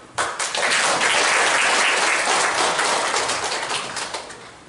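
An audience in a hall clapping for a guest just introduced. The applause starts suddenly and slowly dies away near the end.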